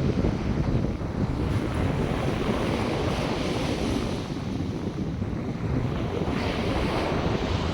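North Sea surf washing onto the beach in surges, with a fresh wave breaking near the end, and wind buffeting the microphone with a low rumble.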